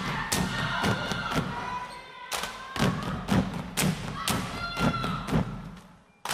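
Step team stomping and clapping in unison: a rhythmic run of sharp thuds, about three to four a second, that breaks off into a moment's silence near the end.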